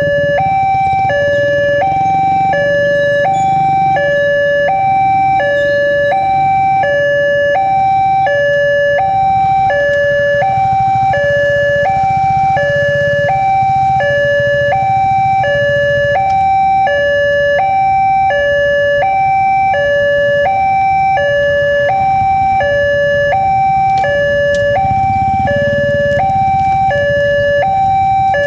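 Railway level-crossing warning alarm from the crossing's loudspeaker: an electronic two-tone signal swapping steadily between a higher and a lower pitch. It sounds while the barrier is down and the red lamp is lit, warning that a train is approaching.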